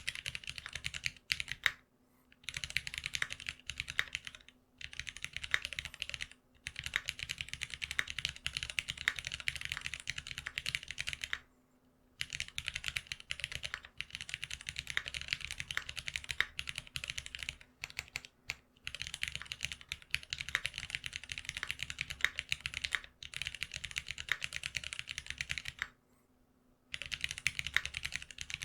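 Fast typing on a GeonWorks F1-8X custom mechanical keyboard fitted with lubed Cherry retooled Black linear switches on 65 g long springs: a dense run of key clacks, broken by a few short pauses.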